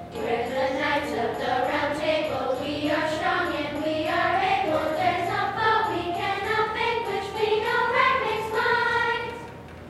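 Children's choir singing a melody together, led by a conductor; the singing stops shortly before the end.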